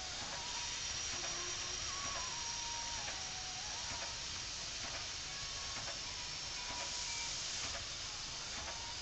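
Standing steam locomotive hissing steadily as it blows off or leaks steam, with a few faint clicks and faint wavering tones in the background.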